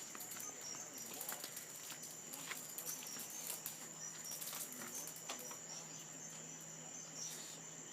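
Steady high-pitched chirring of a night insect chorus, with scattered light clicks and taps and a faint low hum underneath.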